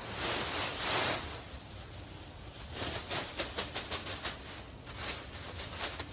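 Pine shavings being tipped out of a plastic construction bag and spread on the coop floor: two loud swishing pours in the first second or so, then a quick run of short rustles and crackles.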